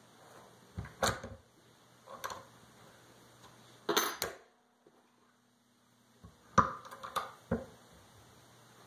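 Irregular metal clicks and clunks from handling the parts and key clamps of an old key cutting machine, a handful of separate knocks with short gaps between.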